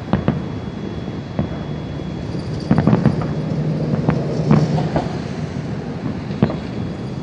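Fireworks exploding overhead: a string of irregular booms and cracks, thickest about three seconds in and again around four and a half seconds, over a steady low rumble.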